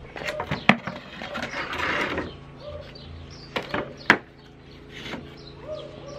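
Wooden pallets knocked and shifted into place as one pallet is set on top of another: a few sharp wooden knocks, the loudest about four seconds in, and a short scraping rush of wood on wood around two seconds in. Small birds chirp in the background.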